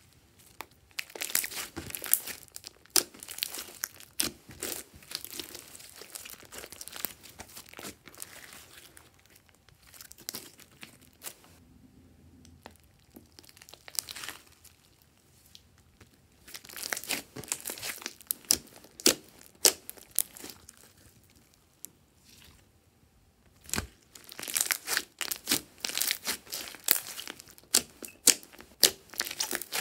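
Hands squeezing, kneading and stretching glossy slime: sticky crackling and popping clicks as the slime pulls and folds, in spells of dense clicking with a couple of quieter lulls.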